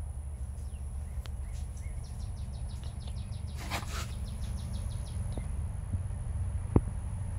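Outdoor ambience: a steady low rumble and a constant high-pitched whine, with a bird's quick run of chirps through the middle and a harsh call among them. A single sharp click comes near the end.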